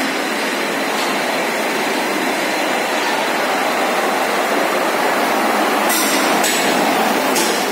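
Steady, loud mechanical noise, a continuous rushing roar of running machinery, with some higher rattling near the end.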